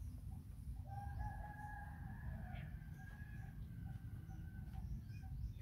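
A rooster crowing: one long drawn-out call starting about a second in and lasting about four seconds.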